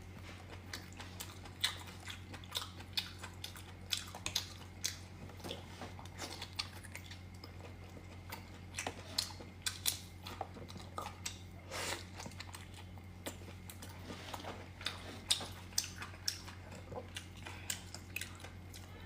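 Close-miked chewing and biting of a person eating pork lung noodles, with many quick wet mouth clicks and smacks at an uneven pace. A steady low hum runs underneath.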